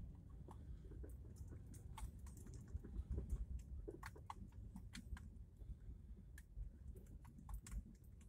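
A car rolling slowly over a cobblestone road, heard from inside the cabin: a low rumble with many irregular light clicks and ticks.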